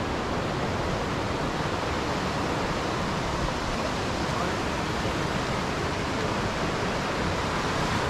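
Steady rushing of falling water, even and unbroken throughout.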